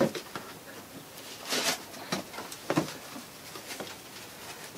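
Handling noises as the hand oil-extraction pump's pickup tube is pulled out of the diesel engine's dipstick tube: a sharp click at the start, a brief rustle about a second and a half in, and a few light knocks.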